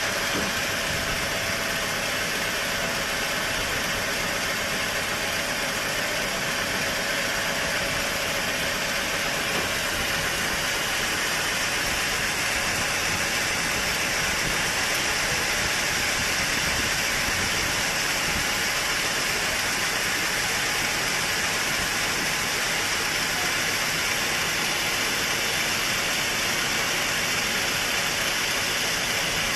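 Sawmill machinery running steadily: a constant mechanical hum under an even hiss that does not change.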